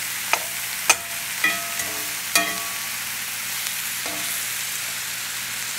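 Ground beef patties with onions and mushrooms sizzling steadily in a cast iron skillet. A metal spatula clinks and scrapes against the pan four times in the first two and a half seconds as the burgers are flipped, the later clinks ringing briefly.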